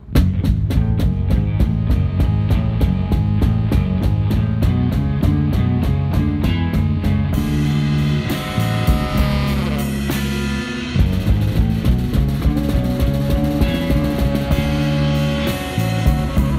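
A rock band playing an instrumental psychedelic rock passage: a drum kit beating out a steady rhythm under a busy electric bass line and electric guitar. The music starts suddenly, and a long held note sounds over the band near the end.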